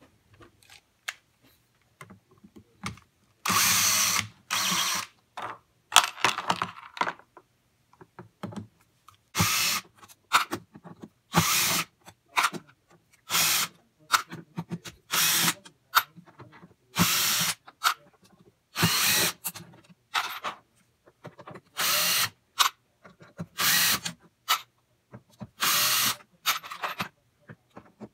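Cordless drill/driver running in short bursts about every two seconds as it backs screws out of a metal speaker panel, with short clicks and clinks between the runs as the loose screws are dropped into a plastic tray.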